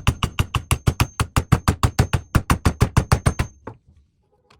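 A fast, even run of sharp clicks, about seven a second, with a faint high whine behind them. The clicks stop about three and a half seconds in.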